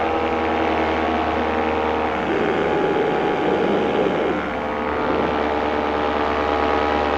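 Paramotor engine running steadily in flight, a constant drone with a brief patch of extra noise in the middle.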